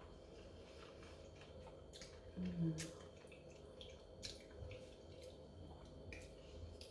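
Quiet mouth sounds of a person eating a spoonful of pasta: soft chewing with faint lip-smack clicks, and a short hummed "mmm" about two and a half seconds in.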